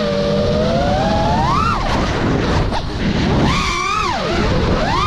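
FPV quadcopter's brushless motors and propellers whining, the pitch swooping up and down with the throttle: a long rise, a brief drop-out, then several quick swoops near the end. A low rumble of wind runs underneath.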